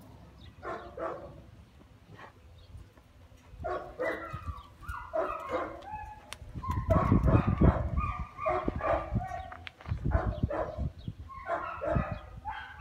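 A dog barking and whining in a run of short calls that bend in pitch, getting busier from about four seconds in. Low rumbling on the microphone comes twice in the middle.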